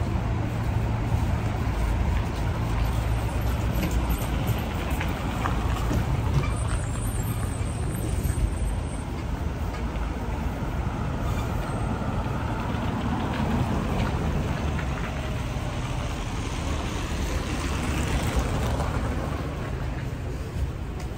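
City street traffic: cars driving past in a steady stream, with a steady low rumble.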